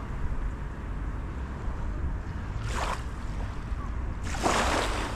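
Sea waves washing onto a beach, two surges close together near the end, over a steady rumble of wind on the microphone.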